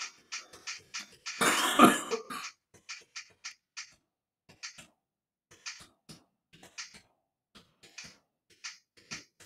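Beatboxing: sparse, irregular hi-hat-like ticks and clicks made with the mouth, with one louder, lower vocal burst about one and a half seconds in.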